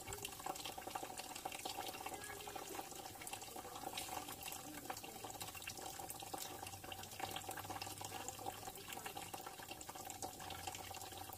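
Wort running out of a hose into a plastic bucket, a continuous trickling and splashing, over a steady hum.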